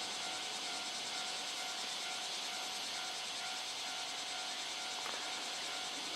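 Steady chorus of insects, a dense high-pitched buzz, with a faint steady tone lower down.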